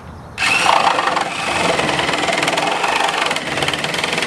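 Cordless reciprocating saw with a carbide-tipped blade running, cutting through the nails between a pallet's slats and side rail. It starts about half a second in and runs steadily, with a fast even pulse from the blade's strokes.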